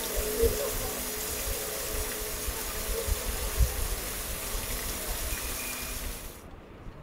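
Water of the Fountain of Neptune splashing from its jets into the stone basin, a steady rushing spray that cuts off suddenly near the end.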